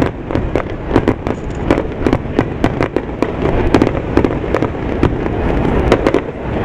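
Aerial fireworks bursting overhead in a rapid, irregular barrage of sharp bangs and pops, several a second, over a constant low rumble.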